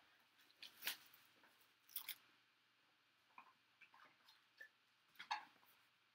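Faint crinkling and rustling of a trading-card hobby box being unwrapped and opened by hand: plastic wrap and cardboard handled in a few short, scattered crackles.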